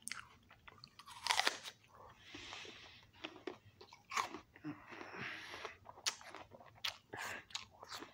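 A person biting into and chewing a raw apple close to the microphone. The loudest crunch comes about a second in, followed by repeated crunching chews.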